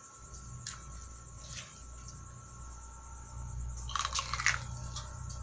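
A bite into a steamed sweet corn cob, a short cluster of crunchy pops of kernels breaking about four seconds in. Before it come a few faint clicks of the corn husk being handled, over a low steady hum.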